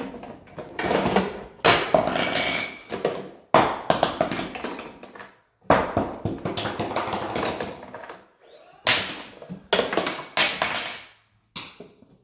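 A toddler knocking and clattering on a toy play kitchen: about eight sudden knocks or clatters, each trailing off over a second or so.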